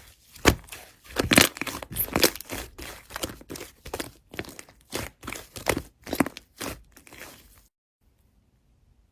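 Slime being squeezed and poked by hand, a quick irregular run of crackly, crinkling pops that stops abruptly near the end.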